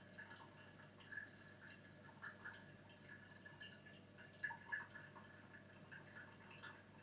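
Brewed coffee dripping from a Hario V60 paper filter into a glass server: faint, irregular drips as the bed drains. Two louder clicks about halfway through, as the dripper is handled.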